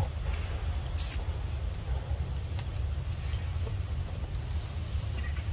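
Forest insects keep up a steady high-pitched buzzing chorus at two pitches, over a low rumble, with one brief click about a second in.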